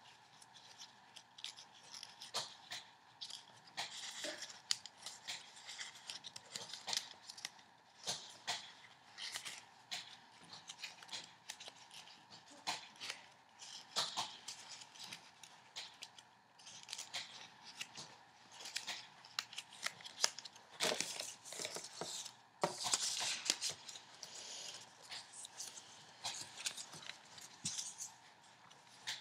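A sheet of paper being folded by hand into an origami star: an uneven stream of rustling, sliding and crisp crackles as creases are pressed and flaps tucked in.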